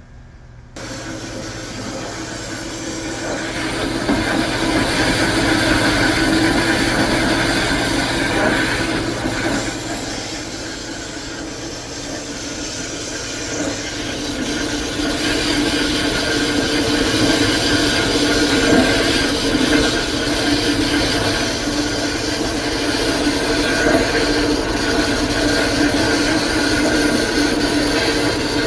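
Band saw switched on about a second in and running steadily, a continuous whirring hum with a few steady tones, its level swelling and easing over several seconds.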